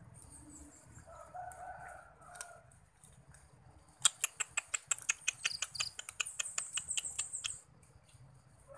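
A cat chewing on a corn cob: a run of sharp, crunchy clicks, several a second, starting about four seconds in and stopping a second before the end.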